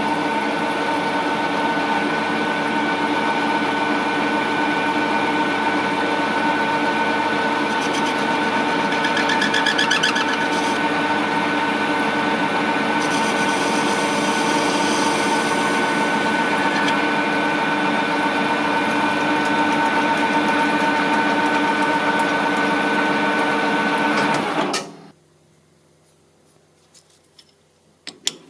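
Metal lathe running steadily with a constant gear-drive whine while it cuts shallow decorative grooves into a turned steel post. The lathe shuts off about 25 seconds in and goes quiet, followed by a few light clinks.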